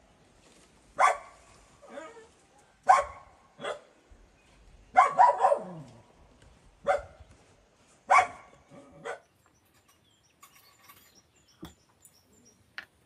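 A dog barking: about eight loud barks, irregularly spaced roughly a second apart, some ending in a falling pitch. The barking stops about nine and a half seconds in.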